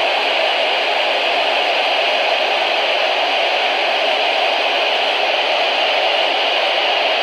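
Steady, loud hiss of static from a weather radio receiver, with no broadcast voice coming through.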